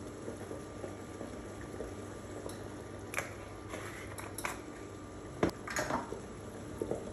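Soup simmering in an open stainless steel pot, a steady bubbling. A few sharp clicks and knocks come from about three seconds in.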